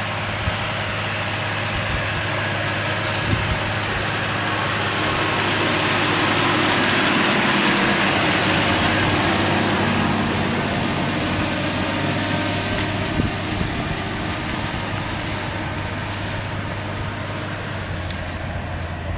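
John Deere 6530 tractor's diesel engine running steadily under load while pulling a Moro four-furrow plough through the soil. It grows louder as the tractor passes close by, about halfway through, then fades as it moves away.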